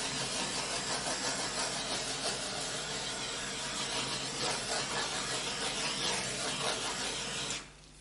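Handheld gas torch burning with a steady hiss as it is passed over wet acrylic pour paint to pop air bubbles. The flame cuts off suddenly near the end.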